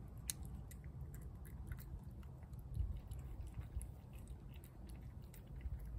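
A cat chewing wet food from a plate, making soft, irregular chewing clicks over a steady low rumble.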